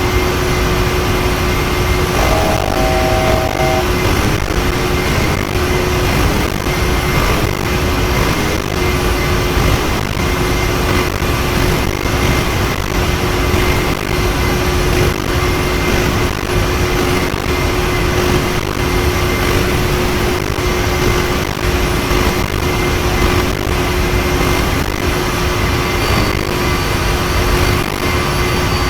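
Boeing 737-900's CFM56-7B jet engines heard from inside the cabin, a steady loud rush of noise with a constant whine. About two seconds in, a brief electronic tone sounds over it.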